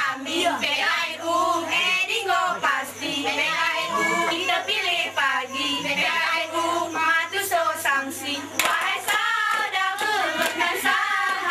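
Young women singing a mesekat chant together while clapping and striking their hands in time with the dance, with a run of sharp claps a little past the middle. A steady low hum runs underneath.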